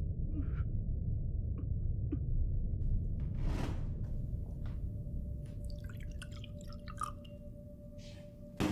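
Milk pouring from a carton into a cut-crystal glass, with many small splashes and gurgles, after a low rumble with a few small wet clicks and a brief whoosh about three and a half seconds in. A faint steady tone runs under the pouring, and a single sharp knock comes near the end.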